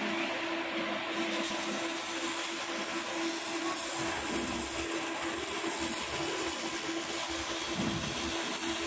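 Handheld 200 W pulsed fiber laser cleaning head ablating rust and coating from a metal plate: a steady high hiss that comes in about a second in, over a steady machine hum.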